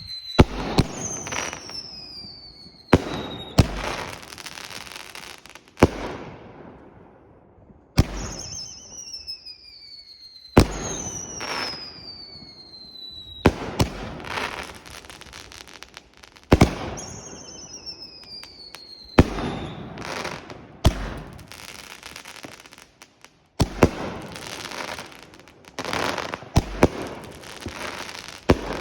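A 10-shot Dominator Pro Line consumer firework cake firing shot after shot, roughly ten in all, a few seconds apart. Several shots carry a whistle that falls in pitch before a sharp bang, and each bang is followed by a noisy crackling tail.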